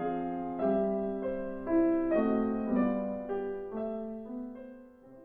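Gentle solo piano intro music, a melody over sustained chords changing about twice a second, fading out near the end.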